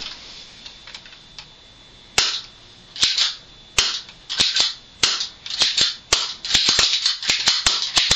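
Full-metal Galaxy spring airsoft pistol being cocked and fired shot after shot to empty its seven-round magazine: sharp clicks and snaps of the slide being pulled back and the spring releasing. They start about two seconds in, a few at first, then coming faster.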